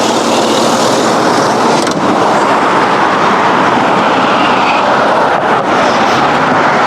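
Steady, loud rushing vehicle noise from a 2013 Cadillac Escalade, an even roar with no distinct engine note or break.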